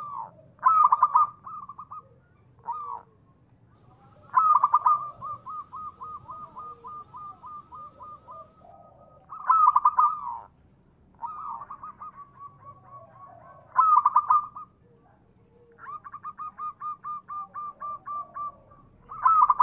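Zebra dove (perkutut) cooing its song over and over. Each phrase opens with a few loud notes and then runs on in a long string of quick, softer clipped notes.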